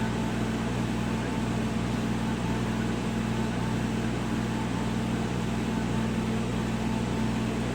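Steady hum of a laser CNC machine's running equipment: several low steady tones over an even fan-like rush that holds constant throughout.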